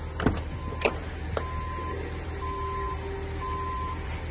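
A couple of latch clicks as the 1982 Ford Granada Ghia's driver's door is opened, then the car's warning chime beeping steadily, about one half-second beep each second.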